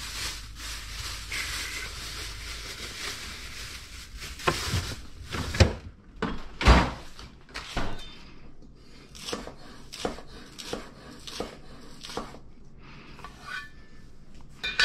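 Kitchen clatter: a run of light knocks on wood and dishware, roughly two a second, the loudest about seven seconds in. A steady hiss from the gas stovetop under the wok runs beneath for the first six seconds or so, then drops away.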